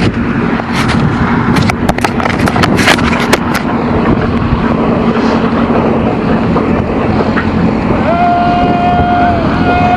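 A vehicle engine runs steadily with some knocking early on. About eight seconds in, a horn gives a long, flat-pitched honk, and a second honk starts near the end: tractor drivers honking in salute.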